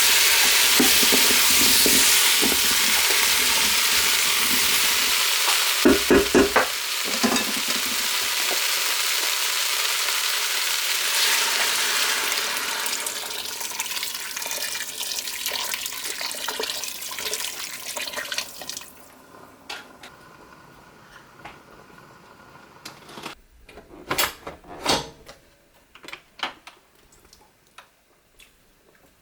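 Food sizzling in a hot cooking pot as it is stirred, with a few knocks of the spoon against the pot about six seconds in. The sizzling gradually dies away about two-thirds of the way through, and a few quieter clicks and knocks follow.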